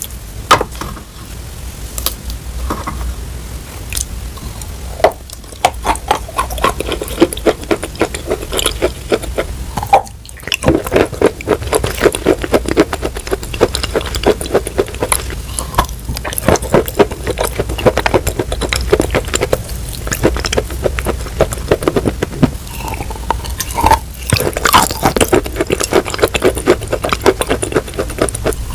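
Close-miked eating of white Turkestan clay chunks coated in wet clay paste: dense crackling crunches from biting and chewing the clay, mixed with wet, sticky mouth sounds from the paste.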